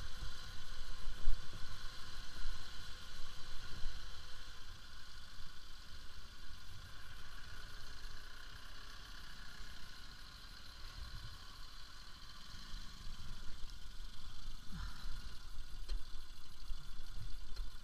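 Bajaj Pulsar RS200's single-cylinder engine running at low speed on a rough dirt track, with rumble and scattered knocks from the bumpy ride; it dips quieter around the middle, then picks up again.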